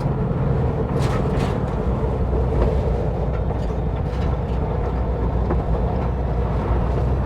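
1958 Volkswagen Bus's air-cooled flat-four engine running steadily as it drives over a rough dirt trail, heard from inside the cabin. A couple of sharp knocks come about a second in, from the bus jolting and loose gear rattling.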